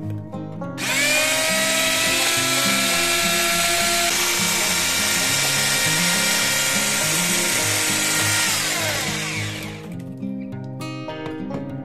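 Electric hand mixer whirring as its beaters whip cake batter: it spins up about a second in, runs steadily, then winds down and stops near the end. Background music plays underneath.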